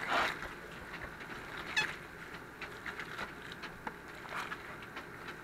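Gloved hands squeezing and pulling apart smoked pork shoulder in a foil pan: faint wet squelches and scattered small taps. There is one short squeak a little under two seconds in.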